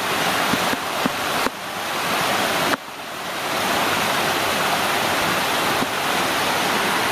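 Small rocky stream rushing and splashing down shallow cascades, a steady rush of water. The sound dips suddenly about three seconds in and builds back within a second.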